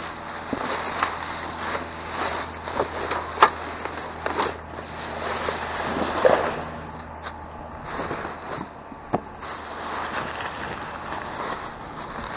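Rummaging through trash bags in a dumpster: plastic rustling with scattered sharp knocks and clatters of objects being moved, over a steady low hum.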